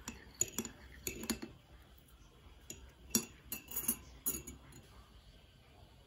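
Metal teaspoon stirring tea in a ceramic mug, clinking against the mug's inside wall in a string of irregular, ringing clinks that stop about four and a half seconds in.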